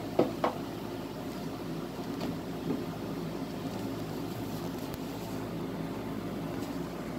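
Steady low hum of a honeybee colony in an opened AZ (Alberti Žnidaršič) hive, with two light wooden knocks just after the start as a board is lifted out of the hive.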